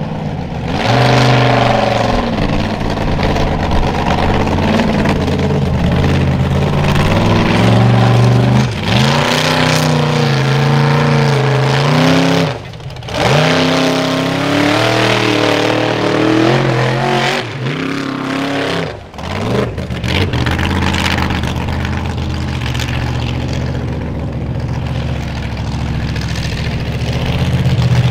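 Formula Offroad buggy's engine revving hard, its pitch rising and falling repeatedly as the throttle is worked, with two brief lifts off the throttle about halfway and two-thirds through.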